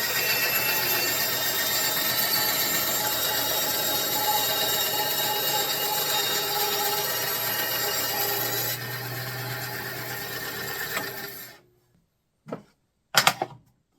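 Consumer-grade benchtop bandsaw running and cutting wood: a steady motor hum under the blade's hiss. The cutting noise eases about nine seconds in, the sound cuts off abruptly near the end, and two brief sounds follow.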